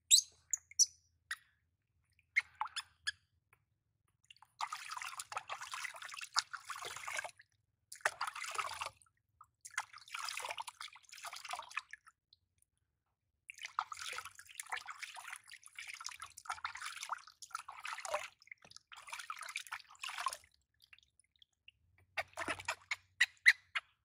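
Water sloshing and splashing in a plastic basin as a baby monkey is washed by hand, in bursts of a few seconds at a time. Short splashes and drips come near the start and again near the end as the monkey is lifted out dripping.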